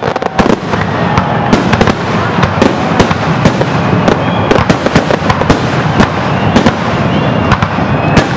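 Aerial firework shells bursting in rapid succession: many sharp bangs close together over a continuous din, with no pause.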